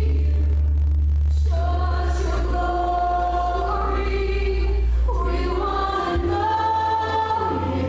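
Group of voices singing a slow worship song, holding long notes over sustained low bass notes from the band.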